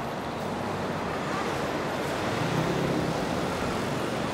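Steady city street traffic noise: a continuous wash of cars and scooters on a multi-lane road, with a low engine hum swelling briefly in the middle.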